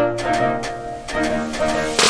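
Background instrumental music with bowed strings and a plucked bass line.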